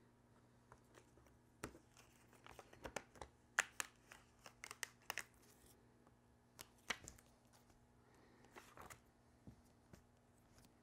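Faint, irregular crackles and ticks of black heat transfer vinyl being weeded: a pointed weeding tool picks at the cut vinyl and the excess is peeled off its clear carrier sheet. The crackles are densest in the first half.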